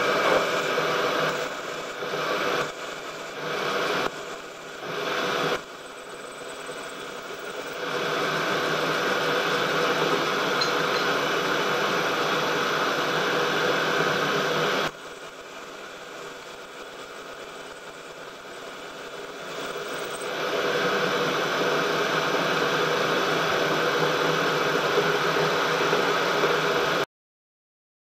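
Milling machine spindle running with a twist drill in its chuck, drilling holes deeper into a brass plate. It runs steadily but gets louder and quieter in turns, several times in the first few seconds and again in the middle, then cuts off suddenly near the end.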